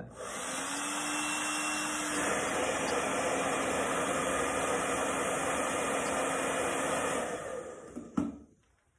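Hand-held hair dryer running steadily, with a faint whine over its airflow. About two seconds in the whine drops slightly and the sound changes: the blanket has been drawn against the dryer's air intake, which risks burning the dryer out. It dies away near the end with a click.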